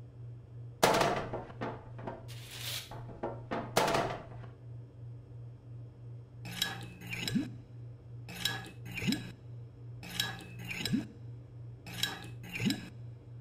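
Cartoon kitchen sound effects of a spoon scraping and clattering in a mixing bowl. Then comes a repeating pattern, about every two seconds, of spoon clinks followed by a short rising plop as batter is dropped into cupcake cases. A steady low hum runs underneath.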